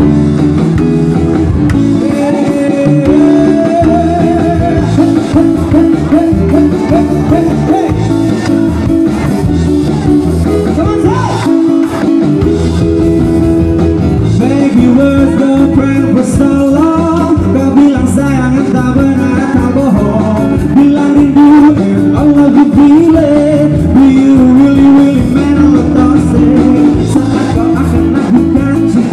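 Live band playing a song: a man singing into a microphone over electric guitars and drums.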